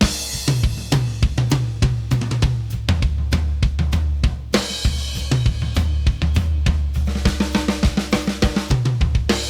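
Band music led by a drum kit: snare, bass drum and cymbals keeping a steady beat over a bass line.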